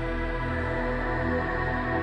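Background music: a calm ambient synth track with sustained tones over a low pulsing bass.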